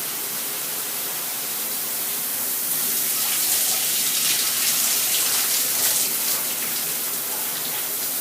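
Spa Fire Hydrant shower head spraying water steadily on its regular spray setting. It grows a little louder about three seconds in, then settles back.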